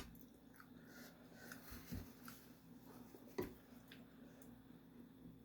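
Near silence: room tone, with a faint low hum and two soft knocks, about two seconds in and again about a second and a half later.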